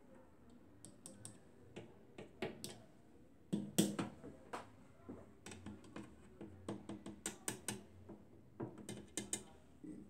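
Irregular small clicks, taps and scrapes of multimeter test probes touching and being moved over a microwave oven's sheet-metal chassis and internal parts, with a louder cluster of taps a little past the middle.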